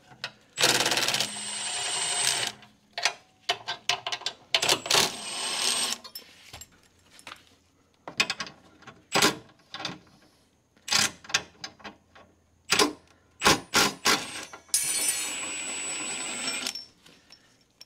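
A power tool runs in three bursts as it spins out bolts. The first and last bursts last about two seconds, and the middle one is shorter. Between the bursts come many sharp metallic clinks and clanks as the bolts and the makeshift bumper support brackets come loose.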